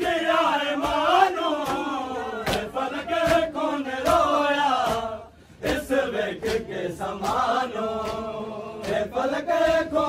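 Men's voices chanting a Saraiki noha, a Muharram mourning lament, in a sung, repeating refrain that pauses briefly a little past halfway. A few sharp slaps of chest-beating (matam) cut through the chant.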